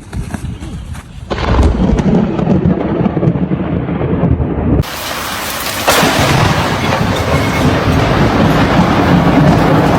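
Thunder from a nearby lightning strike, a loud low rumble that starts suddenly about a second in and rolls on. Near the middle it drops abruptly, then a louder, harsher rumble breaks in and holds to the end.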